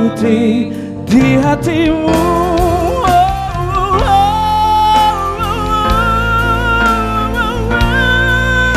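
Live band music: a song played on electric guitar and keyboard, its melody carried in long, wavering held notes over a steady low accompaniment.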